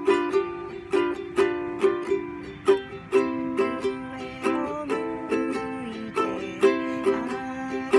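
A ukulele strummed, chords ringing out with sharp strums about two a second.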